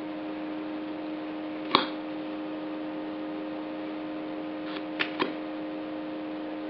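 Steady electrical hum on the recording. It is broken by a short tap a little under two seconds in and three faint clicks around five seconds.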